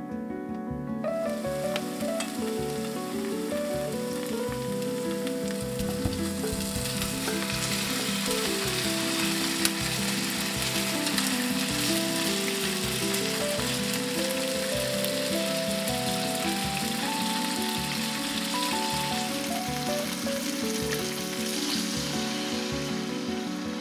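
Chicken drumettes sizzling as they fry in hot oil in a pan, with the chopsticks turning them now and then. The sizzle starts about a second in, with background music underneath.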